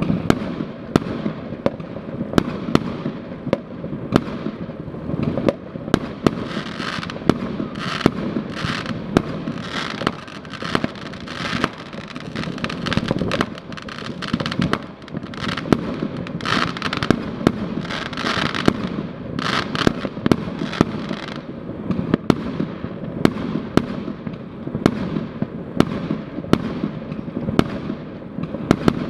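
New Year fireworks going off all around: an unbroken run of sharp bangs, a few a second and irregular, over continuous crackling from aerial shells and firecrackers bursting.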